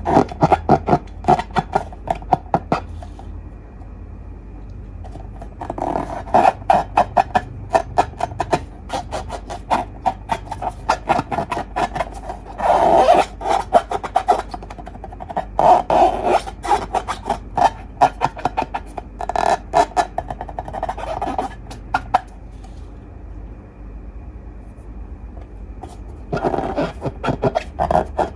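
Slime being squeezed and worked by hand, giving bursts of rapid wet clicks and pops a few seconds long, with quieter pauses between them.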